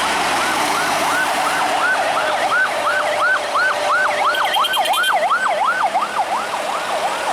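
A siren yelping fast, its pitch sweeping up and down about three times a second, over vehicle and road noise.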